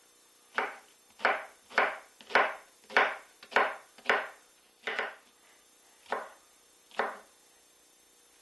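Kitchen knife chopping an onion on a wooden cutting board: about eleven separate knocks, roughly two a second, that stop about a second before the end.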